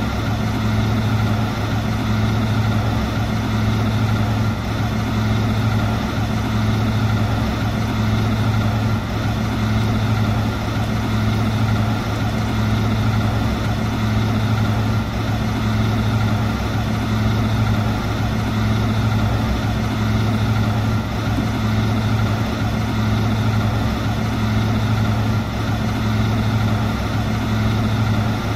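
Garbage truck diesel engine idling steadily, a low even hum.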